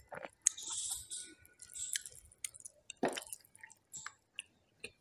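Close-miked eating by hand: fingers squishing and gathering rice and smoked pork, then wet chewing and mouth smacks, with a few sharp clicks.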